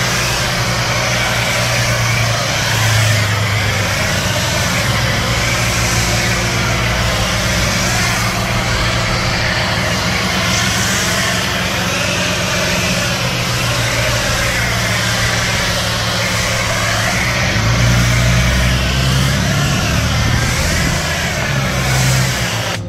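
Electric pressure washer running with a foam cannon attached, spraying foam in a steady hiss over a low motor hum. The spray cuts off suddenly at the very end.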